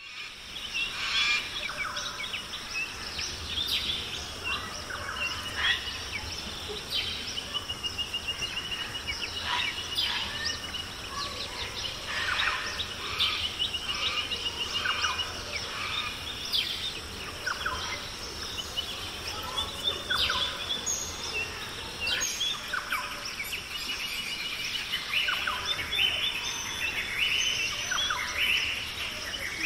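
Nature ambience of many birds calling and chirping, some in rapid trills, over a steady high-pitched insect drone.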